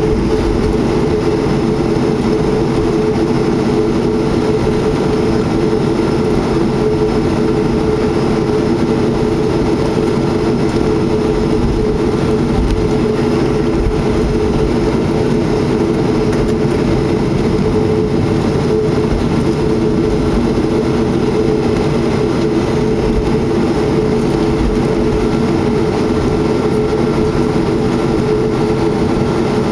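Inside the cabin of a Boeing 737-300, the CFM56-3 jet engines running at a steady, unchanging setting: a loud drone made of several steady low tones over a rumble.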